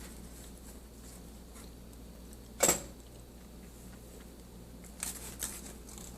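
A brittle chunk giving one sharp crunching snap about two and a half seconds in, then two softer crackles near the end.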